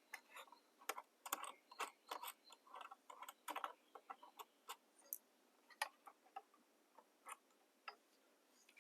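Faint, irregular small clicks and taps of hands working the small hardware of a wall light fixture, a few a second.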